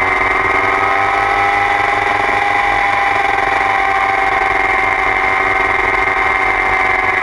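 2009 Kawasaki ZX-6R's 599 cc inline-four engine running hard while riding at speed on a race track, heard from the bike's tail. Its note stays steady and loud, with only slight drifts in pitch.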